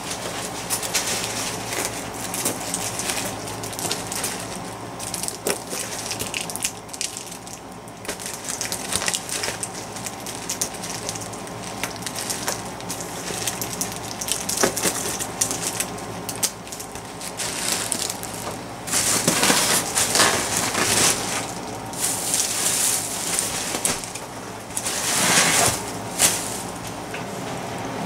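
Plastic packing material, air pillows and bubble wrap, being crinkled and crushed flat to deflate it for recycling, giving a continuous crackle and rustle. There are louder bursts about two-thirds of the way through and again near the end.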